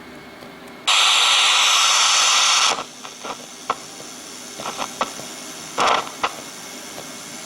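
Radio receiver giving loud static hiss for about two seconds, then a few clicks and a second short burst of static. No programme audio comes through, only noise, which is the sign that the transmitter's feed from the CD player and mixer is not reaching the air.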